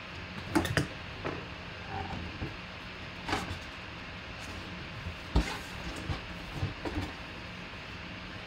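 A cardboard mini-helmet hobby box being handled and opened by hand: scattered short taps, knocks and scrapes of cardboard, the sharpest one a little past the middle. A steady low hum sits underneath.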